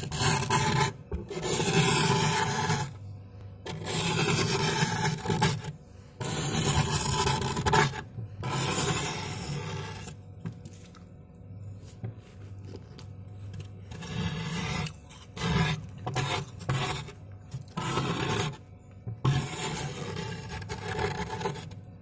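A metal spoon scraping thick, packed frost inside a fridge's freezer compartment, in repeated strokes of a second or two with short pauses between. Around the middle the scraping goes quieter, then comes back in shorter, quicker strokes.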